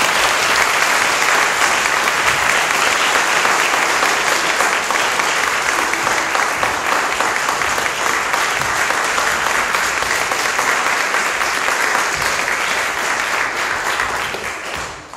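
An audience applauding steadily after a talk, the clapping fading away near the end.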